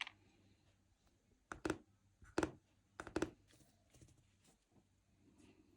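Small hard objects being handled on a work surface: a few sharp clicks and knocks in three quick clusters, about one and a half, two and a half and three seconds in, with fainter ticks and scrapes between.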